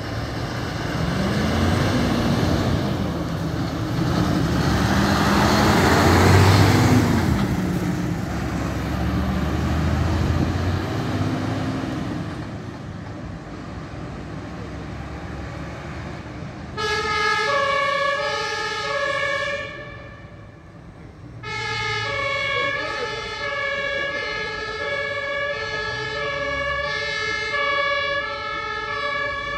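A fire engine's diesel engine revs up and down as the truck pulls out and passes, loudest about six seconds in, then fades as it drives away. About seventeen seconds in, its compressed-air Martinhorn starts sounding two alternating notes for an emergency run. The horn breaks off briefly, then carries on into the distance.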